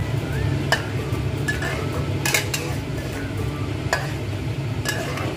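A metal spoon stirring and scraping scrambled eggs in a nonstick pan, with light sizzling. A few sharp clicks of the spoon against the pan, the loudest about two and a half seconds in, sit over a steady low hum.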